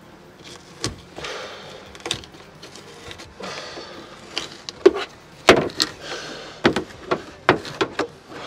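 Long trim strip being pried and pulled off a car body: scraping and creaking, then a quick run of sharp snaps and clicks as its retaining clips pop out, the loudest about halfway through.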